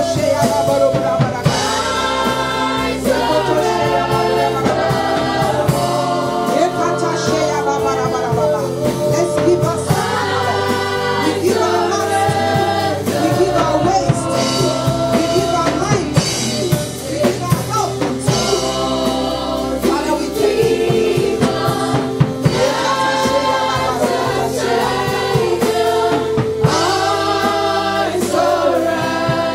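Live gospel worship song: singers on microphones led by a woman's voice, over held keyboard chords and a drum kit.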